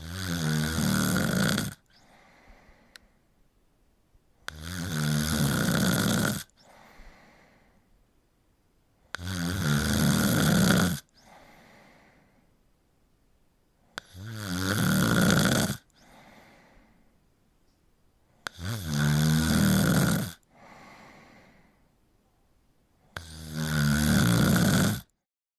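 A person snoring: six loud, rattling snores, one about every four and a half to five seconds and each lasting nearly two seconds, with a faint breath after each one.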